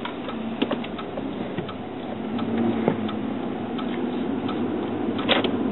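Car interior engine and road noise, steady and a little louder from about halfway through, with scattered light clicks and a sharper click near the end.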